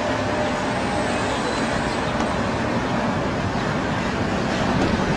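Motor vehicle engines running with a steady low road rumble.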